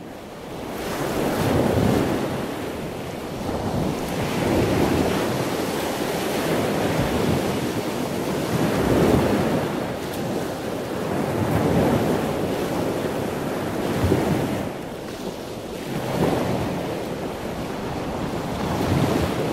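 Ocean surf: waves washing in, swelling and easing every few seconds.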